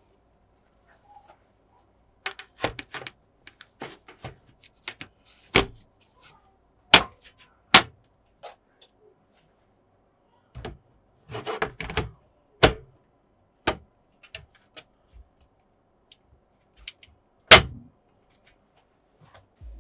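Irregular clicks, taps and knocks of PC hardware being handled and fitted into a case, with quiet gaps between them, a brief scraping rustle around the middle and a sharp knock near the end.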